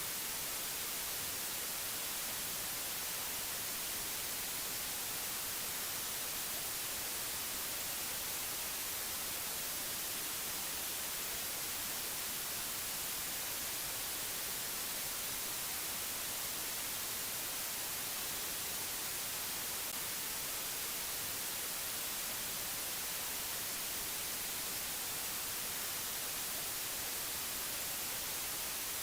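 Steady, unchanging white-noise hiss, strongest in the treble, with no tones, clicks or changes.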